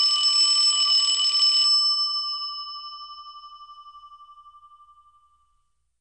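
Alarm bell ringing rapidly, then stopping under two seconds in and ringing out, its tone fading away with a slight waver over about three seconds.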